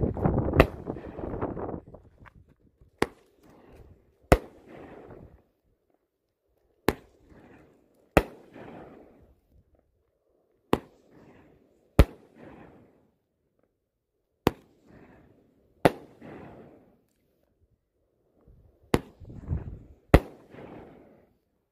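A Brothers Pyrotechnics YOWZA 21-shot 500 g fireworks cake firing its shots one after another. About a dozen sharp bangs come mostly in pairs about a second apart, with a few seconds between pairs. Each bang trails a brief crackle.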